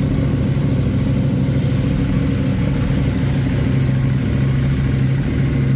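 KTM 690 Duke's 690 cc single-cylinder engine idling steadily.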